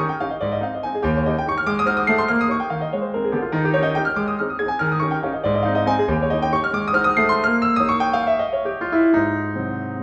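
Background music: piano playing a flowing melody over a steady repeating bass line.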